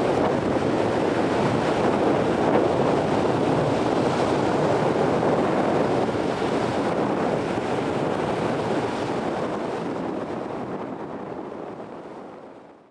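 Steady rush of wind buffeting the microphone, with choppy surf beneath, fading out over the last few seconds.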